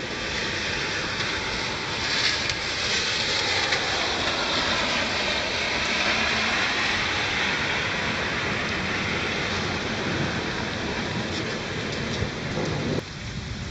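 Heavy thunderstorm rain pouring steadily. It cuts off suddenly near the end, leaving lighter rain.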